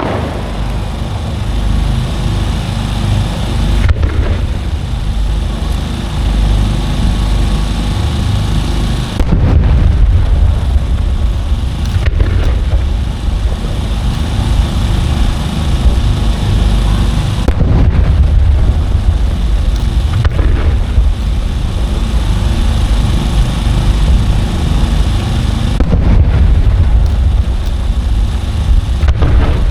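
Fireworks shells bursting in dense succession, a continuous rumble of booms and echoing reports that gets heavier about a third of the way in.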